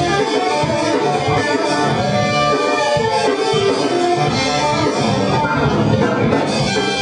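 Swing music played by a band with horns.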